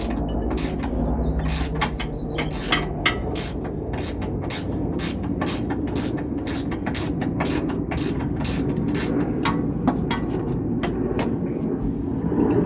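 Hand socket ratchet clicking in a steady run of strokes, about three clicks a second, as a rear shock's mounting nut is worked loose.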